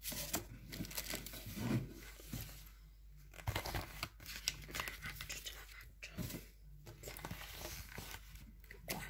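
Paper and plastic rustling and crinkling in irregular handfuls as things are rummaged through, with many small sharp crackles.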